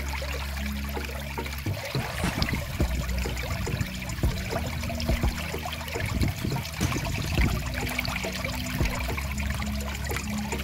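Shallow stream of water running and trickling over rock, a steady splashing rush with many small irregular spatters.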